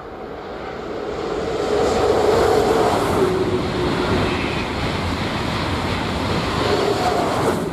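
Trenitalia high-speed train passing at speed: a rushing noise with a steady hum under it, building over the first two seconds, holding, then starting to fade near the end.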